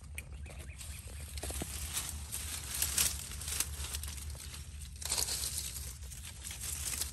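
Dry grass and leaves crackling and rustling as plants are pulled up and cleared by hand, with a tearing sound; louder bursts about three and five seconds in.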